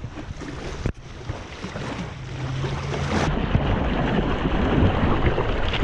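Rushing ocean surf and water, with wind buffeting the microphone. The sound breaks off sharply for a moment about a second in, then carries on steadily and grows a little louder.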